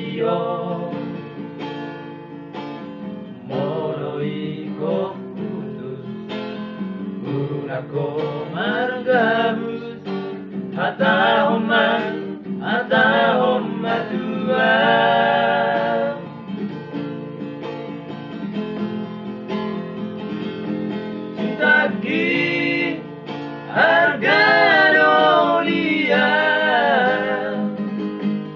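Men singing a song together, accompanied by a strummed acoustic guitar.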